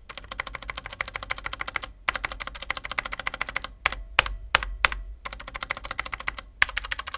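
Typing on a Komic KG-KM870 mechanical keyboard fitted with Outemu Red linear switches: a fast patter of keystrokes with brief pauses about two and five seconds in, and a few louder separate strokes around four to five seconds.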